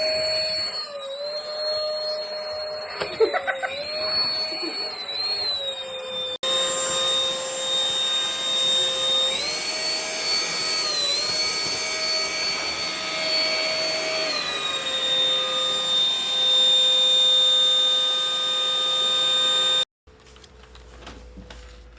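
Cordless stick vacuum cleaner running with a steady high motor whine, its pitch dipping now and then as the head works the floor. Partway through, the whine steps up in pitch for about five seconds and then settles back. Near the end the sound cuts off abruptly.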